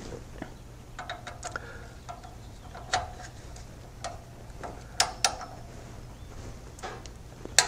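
Click-type torque wrench ratcheting a drain plug tight, with irregular small clicks of the pawl between strokes. A sharper click comes near the end as the wrench reaches its 22 ft-lb setting.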